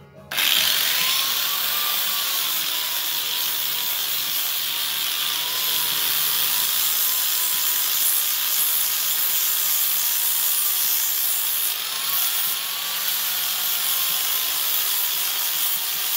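Corded angle grinder with a flap sanding disc grinding the top of a pressure-treated wooden dock piling: a steady, high-pitched grinding hiss, its motor tone wavering slightly as the disc is pressed in. It cuts in sharply just after the start.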